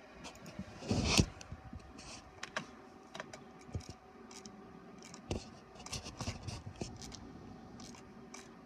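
Papers being handled at an inkjet printer's output tray: scattered clicks and rustles, with a loud scrape about a second in, over a faint steady hum.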